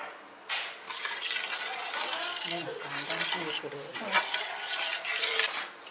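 Metal spoon stirring and scraping through thick vermicelli payasam in a steel pot. The scraping starts abruptly about half a second in and carries on steadily.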